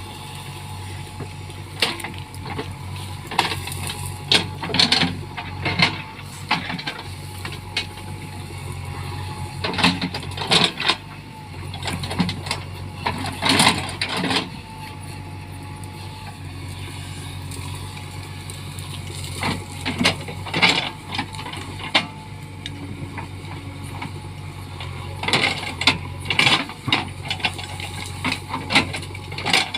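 JCB backhoe loader's diesel engine running steadily, with several clusters of sharp cracking and crunching as branches and wood break under the machine.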